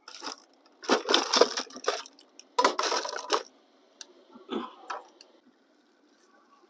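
Crunching and rustling in two dense bursts of about a second each, followed by a couple of light knocks near the end.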